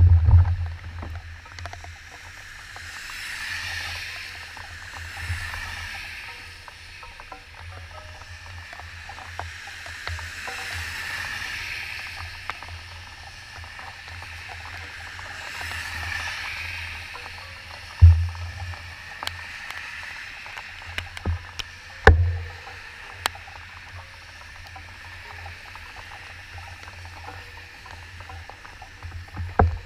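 Cars passing on a rain-wet road, their tyres hissing in swells that rise and fade every few seconds over a low steady rumble. Two sharp knocks come a few seconds apart in the second half.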